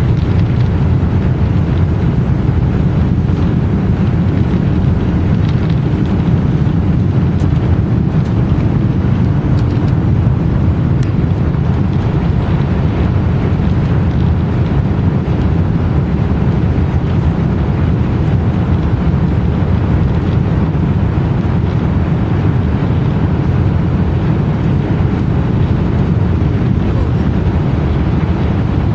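Airbus A330-300 jet airliner on its takeoff, its engines and airflow making a loud, steady low rumble that holds unchanged throughout.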